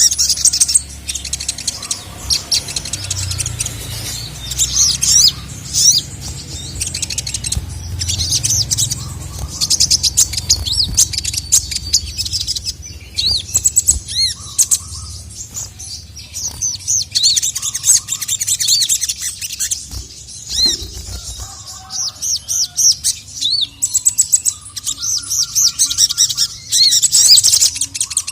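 Sogon (sogok ontong), a small nectar-feeding songbird, singing a loud, fast, high-pitched stream of chirps and trills with only short pauses: the male's calling song.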